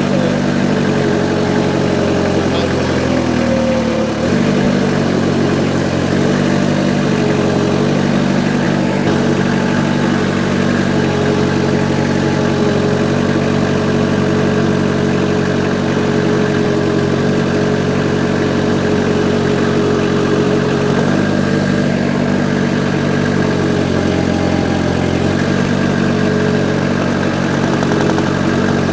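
Diesel engine of a Vermeer S925TX mini skid-steer running steadily while it is driven. The engine note dips and picks up again about four seconds in.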